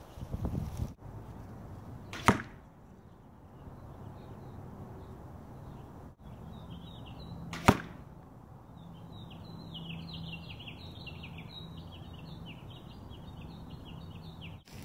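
Two arrows striking a layered-foam Block archery target, each a single sharp thwack, about five and a half seconds apart. Chirping runs in the background from about three and a half seconds in.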